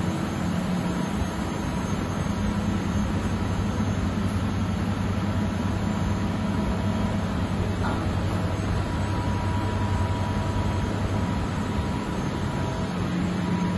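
Steady low hum of powered industrial machinery, with a faint thin tone above it.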